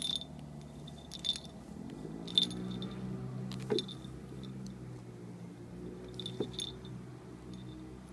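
Metal chain clinking and jingling in several short bursts as a kitten paws and bats at it, with a low steady hum underneath.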